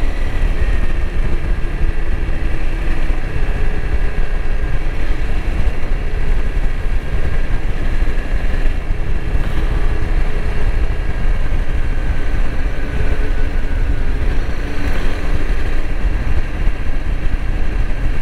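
2021 Honda CRF300L Rally's single-cylinder four-stroke engine running steadily while the bike is ridden along a paved road, under heavy, deep wind rush.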